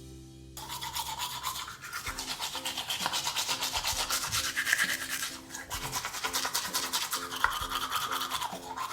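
Toothbrush scrubbing rapidly back and forth on toy dinosaur teeth, starting about half a second in and easing off briefly just past the middle.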